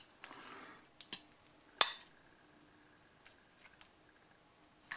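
A metal fork cutting through a soft filled pancake on a plate: a short soft scrape, then a few clinks of the fork against the plate, the sharpest a little under two seconds in, with faint ticks after.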